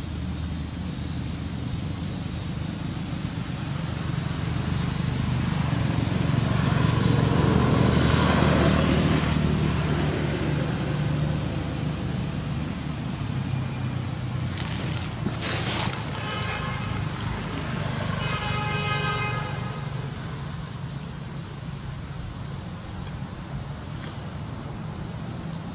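A motor vehicle passing, its low engine and road noise swelling to a peak about eight seconds in and then fading. Later, a pitched tone like a vehicle horn sounds for about two seconds.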